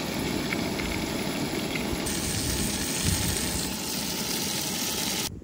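Sitka blacktail deer tenderloins sizzling in oil in a frying pan on a camp stove: a steady sizzle, its tone shifting slightly about two seconds in.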